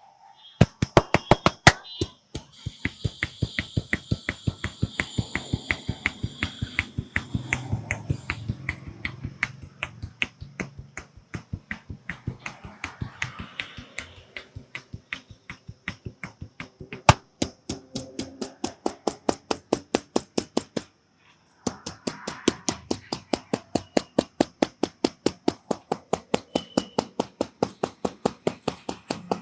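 Quick, even hand slaps of a barber's tapping head massage, about four sharp claps a second, with a short pause about three quarters of the way through.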